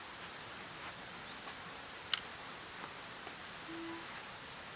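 Steady outdoor hiss, with one sharp click about two seconds in and a short, steady low hoot-like tone near the end.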